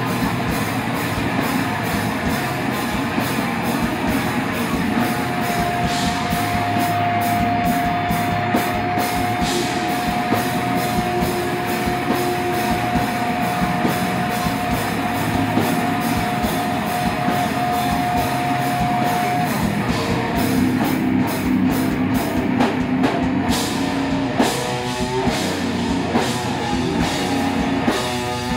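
Heavy metal band playing live: distorted electric guitar and bass guitar over steady drum-kit playing with frequent cymbal hits. A single high note is held from about five seconds in until about twenty seconds in.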